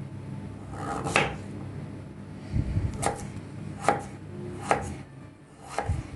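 Kitchen knife chopping peeled fresh ginger into small cubes on a cutting board: five separate sharp chops, roughly a second apart.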